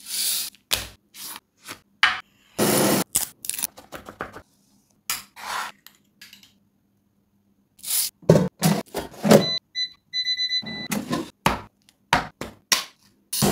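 Close-up kitchen handling sounds in quick succession: a foil tray of chicken rustling and knocking, a metal spoon scraping and clinking in a ceramic ramekin of melted garlic butter, and a can set down on a wooden board. Around ten seconds in comes a row of short, high electronic beeps, first brief, then a few longer ones.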